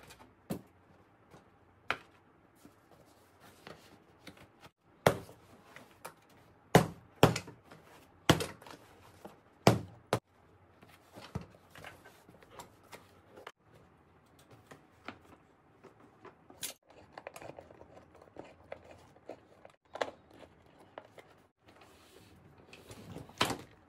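Hard plastic knocks and clicks from the parts of an office swivel chair as the backrest and its plastic support arm are handled and fitted onto the seat, with a run of sharp knocks a few seconds in and a quicker cluster near the end.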